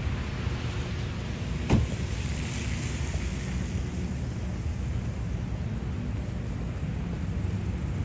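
Road traffic on a snowy city street: a car passes with its tyres hissing through the snow and slush, which swells and fades, over a steady low rumble. A single sharp knock comes just under two seconds in.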